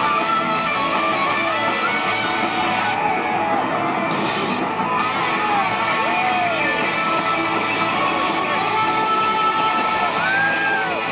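Live rock band playing loudly: electric guitars strumming under a melody line whose notes glide up and down.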